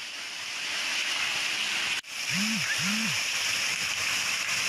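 Heavy rain pouring down in a steady hiss. It cuts out for an instant about two seconds in and comes back slightly louder, and just after that two short low tones rise and fall in pitch.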